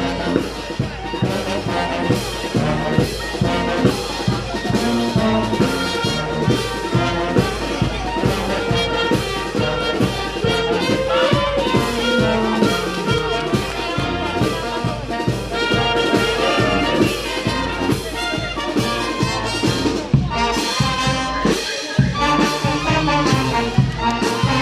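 Live street brass band, trumpets and trombones over a bass drum, playing an upbeat dance tune with a steady beat.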